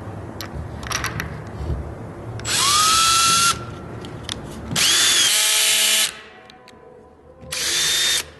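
Milwaukee M18 2611-24 cordless hammer drill-driver running in three short bursts of about a second each. Its motor whine rises at the start of each burst.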